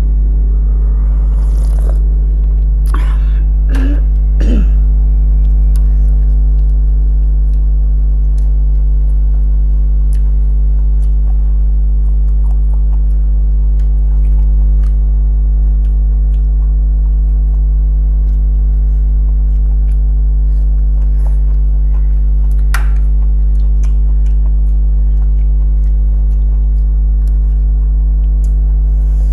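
Eating by hand: fingers scraping rice across a plate, and chewing and lip smacks as scattered small clicks. The clicks come thickest in the first few seconds, with one louder one about 23 seconds in. Under them runs a loud, steady low hum with several steady tones above it.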